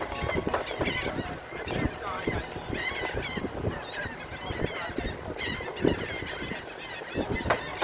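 A large flock of birds calling noisily, many short squawking calls overlapping without a break.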